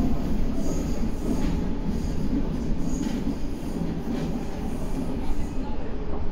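Meitetsu 9500 series electric train running, heard from inside the front car: a steady rumble of wheels on rail with a few brief high wheel squeals.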